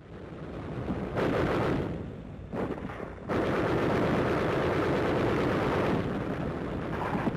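Battle gunfire: a dense, continuous crackle of rifle and machine-gun fire that swells up about a second in, dips briefly, then stays loud and steady from about three seconds in.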